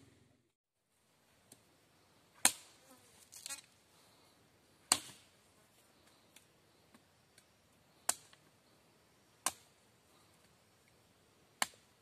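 Machete chopping into a wooden branch lying on the ground: a series of sharp chops, five strong ones spaced irregularly a second or more apart, with a few lighter knocks between them.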